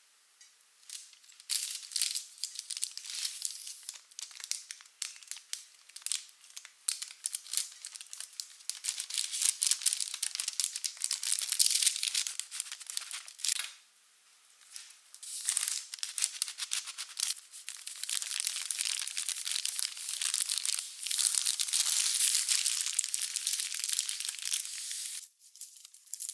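Baking paper crinkling and rustling in dense, irregular bursts as a sponge cake is rolled up tightly in it, with a short pause about halfway through.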